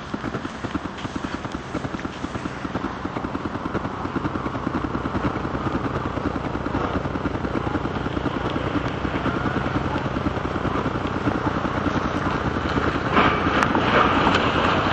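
An engine running with a fast, steady throb, growing louder near the end.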